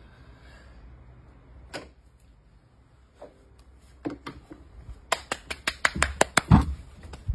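Handling noise from gear being set down and moved on a wooden deck: a couple of isolated knocks, then from about four seconds in a quick run of sharp clicks and taps.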